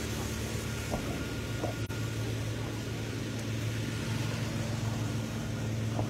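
A vehicle engine running steadily at cruising speed over a dirt road, a constant low hum with tyre and wind noise.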